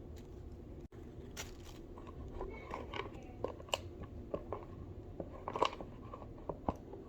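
Packaging of a new pet water fountain being unpacked by hand: irregular crinkles, crunches and sharp clicks, the loudest a little past halfway.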